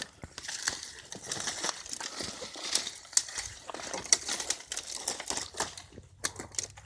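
Footsteps crunching and crackling through dry weeds and brush: irregular sharp crackles and rustles, with a brief lull near the end.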